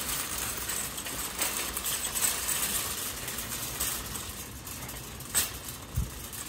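Steady hissing background noise of an open-air store yard, with a few light clicks and a short low thump near the end.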